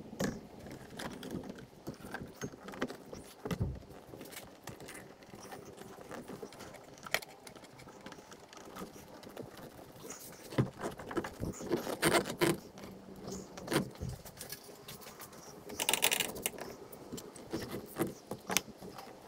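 A new rubber intercooler hose being worked into place by hand among engine-bay parts: rubbing and rustling with scattered light knocks and clicks of the hose and its clamp, busiest past the middle and again near the end.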